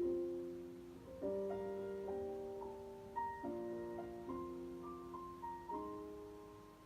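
Slow piano music: sustained chords, each struck and left to fade, changing about once a second.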